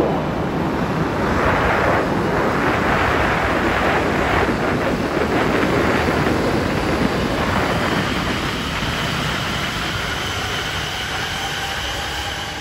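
Rubber-tyred Alstom NS-16 metro train moving off and running, heard from inside the car: a loud, steady rushing noise, hissier in the first half, with a faint high steady tone coming in about two-thirds of the way through.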